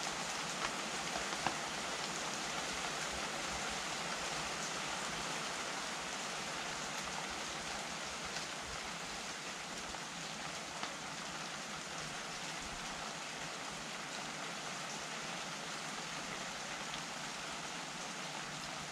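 Steady rain falling: an even hiss with a few sharp drop ticks now and then.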